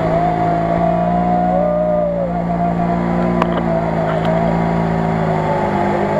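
Off-road buggy's engine running steadily under load as it crawls slowly through deep mud.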